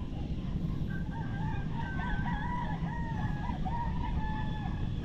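A rooster crowing, a wavering call in several pieces, over a steady low rumble.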